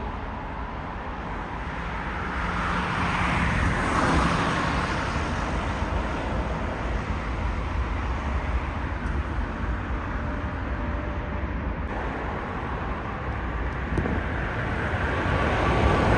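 Steady outdoor rumble of distant jet airliner engines and road traffic, with a swell about three or four seconds in. It grows louder near the end as a jet airliner approaches.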